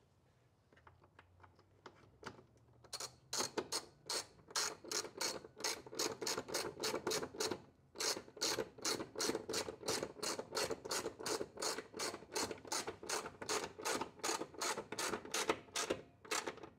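Hand socket ratchet turning a grille mounting screw: a long even run of pawl clicks, about three a second, starting a few seconds in, with a short pause about halfway.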